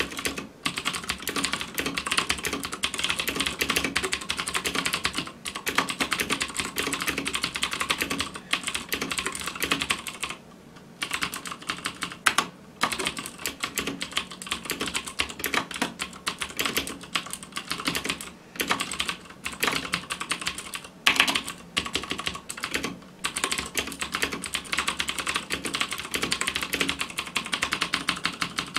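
Fast continuous typing on a Das Keyboard Model S Ultimate mechanical keyboard with Cherry MX Blue switches, each keystroke giving a sharp click, with a few brief pauses.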